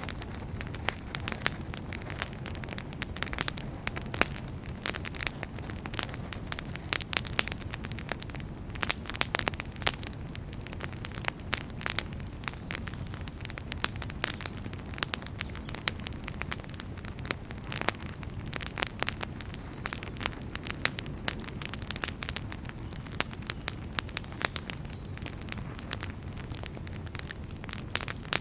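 Wood fire crackling in a fireplace: a steady low rumble of flames with frequent sharp pops and snaps scattered throughout.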